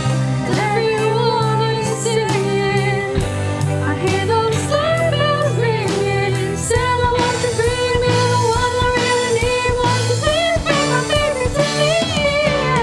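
Female voices singing a Christmas pop song with held, sliding notes, backed by a band of drum kit, electric guitars, keyboard and violin keeping a steady beat.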